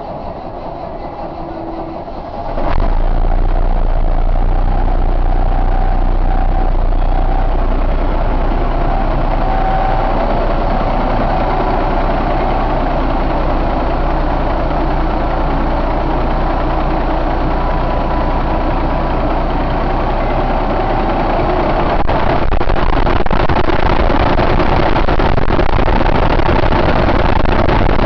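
2006 Cummins ISX 450 hp inline-six diesel truck engine catching about three seconds in, then idling steadily, a little louder from about 22 seconds in.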